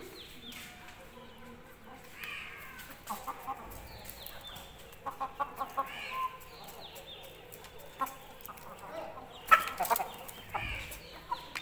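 Young Aseel chickens peeping and clucking in short falling chirps, while one pecks grain from a feed bowl, its beak tapping in quick runs of clicks. A brief, louder burst of noise comes about nine and a half seconds in.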